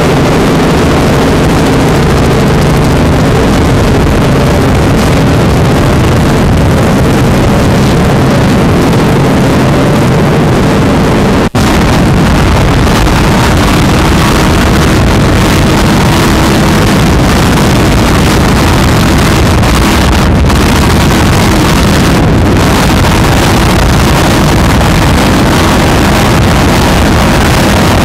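Loud, steady engine drone with wind rushing on the microphone at high speed. A brief gap about eleven seconds in, after which the drone settles at a different pitch.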